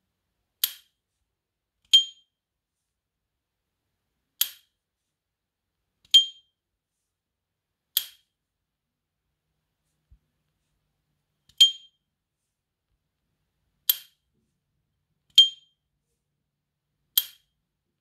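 Silver S.T. Dupont lighter's metal lid being flipped open and snapped shut over and over, nine strikes in all. Four openings give the brand's bright ringing ping with a short decay. Each alternates with a shorter, drier click as the lid closes.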